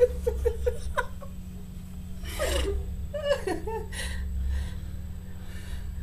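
Chuckling and snickering, with a run of short laughs at first and then a few breathy laughs, over a steady low hum.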